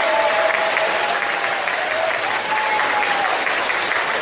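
Audience applauding steadily, with a faint wavering tone under the clapping.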